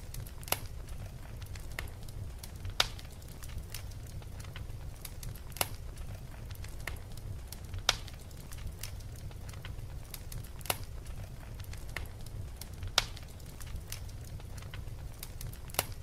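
Crackling fireplace fire: sharp pops and snaps every two or three seconds, with fainter crackles between, over a steady low rumble.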